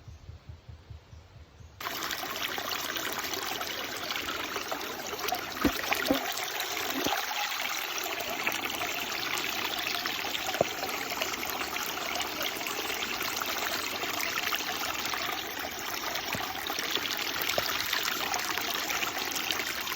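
Mountain stream water running and trickling steadily, coming in suddenly about two seconds in, with a few brief splashes a few seconds later.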